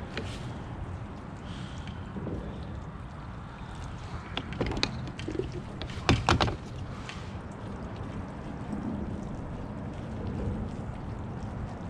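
Water lapping against a plastic kayak hull, with a few sharp clicks about four to five seconds in and louder knocks at about six seconds as the kayak's round deck-hatch lid is taken off.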